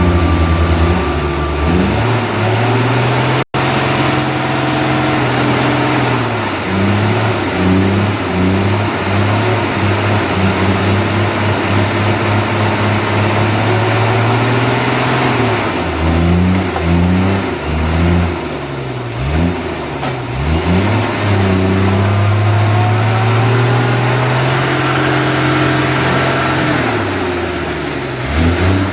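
Shaktiman truck's diesel engine working under load, its pitch rising and falling again and again as it revs up and drops back. The sound cuts out for an instant about three and a half seconds in.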